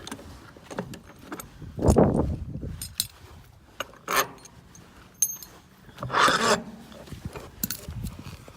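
Hands-on work on a wheel assembly: scattered clicks, knocks and scraping of metal parts and tools being handled, with a loud thump about two seconds in, a brief high metallic ping a little past five seconds and a scraping rattle around six seconds.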